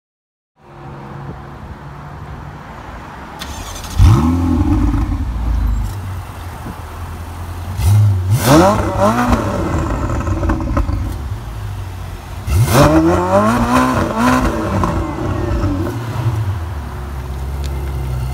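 Ferrari 488 GTB's twin-turbo V8 idling, then revved three times, at about 4, 8 and 12.5 seconds in. Each rev is a quick rise and fall in pitch, and it settles back to idle between revs.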